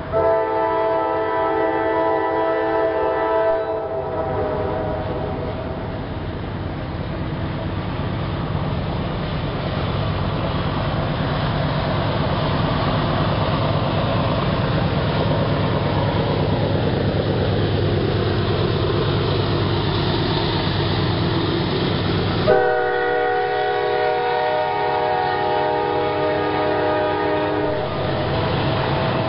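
A weak-sounding K5LA five-chime air horn on a CSX GE CW40-8 diesel locomotive blows a chord for the first few seconds. Then comes the steady rumble of the locomotives' diesel engines and the train's wheel and rail noise. The horn starts again suddenly about 22 seconds in and sounds for several seconds.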